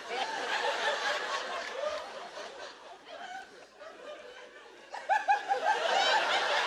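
Studio audience laughing, easing off midway, then breaking into louder laughter about five seconds in.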